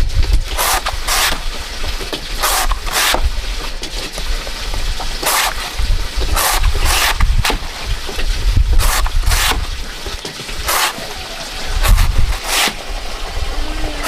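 A long chopping blade slicing thin rounds off a banana stem: about a dozen short, crisp cutting strokes at an uneven pace, often two in quick succession.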